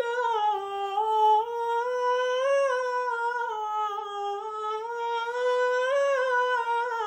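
A man singing one long, high 'nooo' on a single breath, the pitch wavering slowly up and down like a vocal run.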